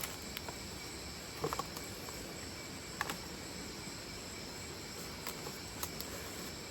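Night insect chorus of crickets trilling steadily in the jungle, with a few faint brief clicks about one and a half and three seconds in.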